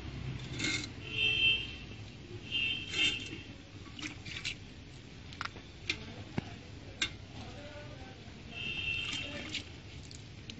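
A cow being milked by hand: short, irregular spurts of milk hitting a steel bucket, some with a brief high metallic ring.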